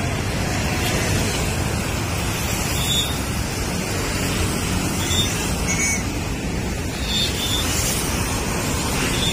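Steady rushing noise of wind buffeting the microphone, mixed with traffic from the flyover.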